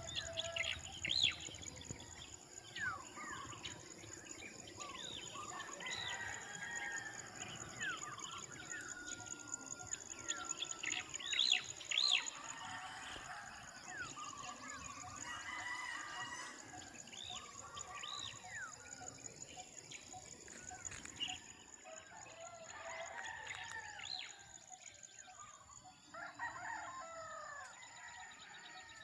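Farmyard birds at dawn: roosters crowing and chickens clucking amid many short chirps from small birds, over a steady high-pitched buzz.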